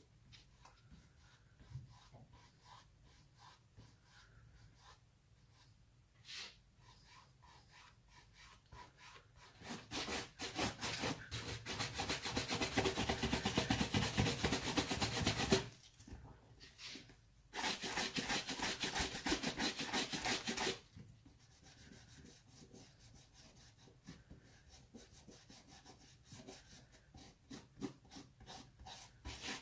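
A brush swept rapidly back and forth over a leather dress shoe to take off excess polish, in two loud bouts of several seconds with a short break between. Before and after, fainter scratchy rubbing as polish is worked into the leather by a gloved hand.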